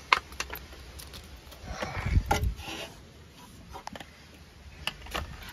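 Handling noises: a few light clicks near the start and a brief scuffing rustle about two seconds in, as a spark plug is handled and the phone is moved.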